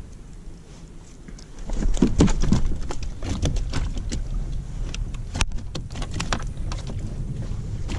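Clatter of small knocks and clicks as gear is handled and shifted against a plastic fishing kayak's hull and pedal drive, over a low wind rumble on the microphone. The knocking starts about a second and a half in and is loudest soon after, with one sharp crack near the middle.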